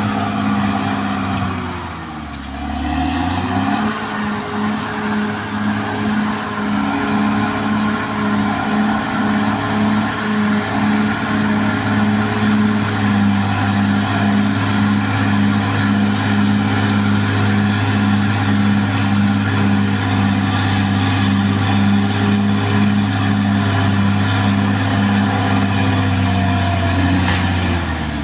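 Caterpillar D6R XL bulldozer's diesel engine running hard, its revs dipping about two seconds in and picking back up, then holding steady with a regular pulsing about twice a second, and dipping again near the end.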